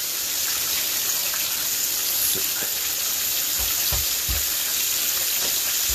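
Breaded chicken-fried steaks shallow-frying in hot oil in a skillet, a steady sizzling hiss. A few soft low bumps come about two-thirds of the way through.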